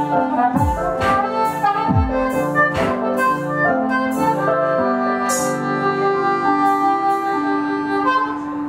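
Live band instrumental: a harmonica played into a handheld microphone holds long notes over electric piano chords. A drum kit adds cymbal crashes, with a few kick-drum beats in the first two seconds.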